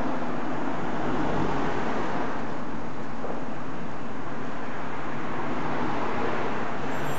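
Steady street ambience: an even haze of road traffic noise. Just before the end, a mobile phone starts to ring.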